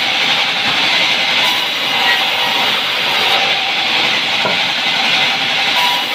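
Sawmill band saw running and ripping lengthwise through a log as the carriage feeds it past the blade, a steady loud cutting noise.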